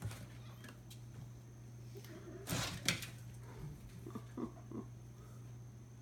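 Kittens playing around cardboard boxes on a wooden floor: two sharp knocks or scuffs on the cardboard about two and a half seconds in, then a few short cat vocal sounds, over a steady low hum.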